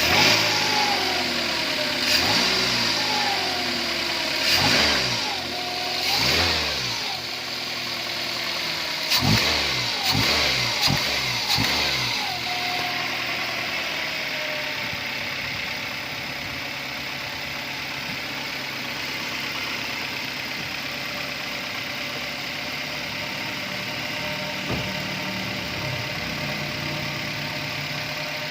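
Toyota Avanza 1.5 L 3SZ-VE four-cylinder engine blipped through a series of quick revs, each rising and falling, over roughly the first twelve seconds, then settling to a steady idle. The engine is running after its bent connecting rods, the cause of its knocking, were replaced.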